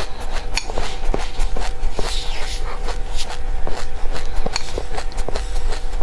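Close-up chewing and crunching of dry seeds: many irregular sharp crackles, several a second, over a faint steady hum.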